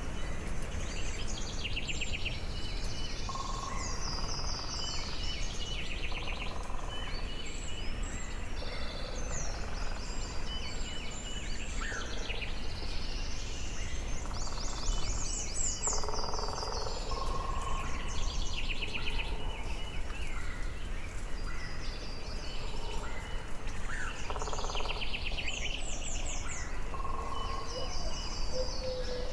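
Several songbirds singing short trilled phrases over and over, over a steady low background noise.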